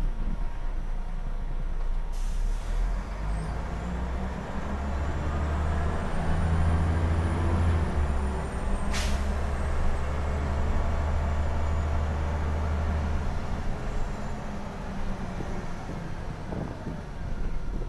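Scania L94IB bus engine heard from inside the cabin, running under load as the bus drives along, its low drone strongest through the middle and easing off near the end. A short rush of noise about two seconds in and a sharp knock about nine seconds in.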